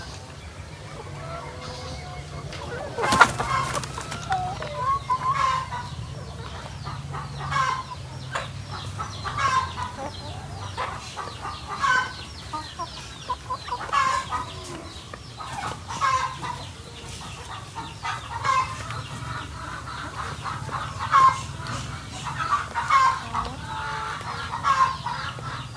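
A flock of laying hens clucking and calling, with short calls every second or so. The loudest moment is a sudden sharp sound about three seconds in.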